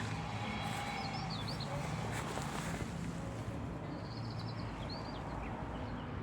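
Small birds chirping with short trills and quick calls, over a steady low hum.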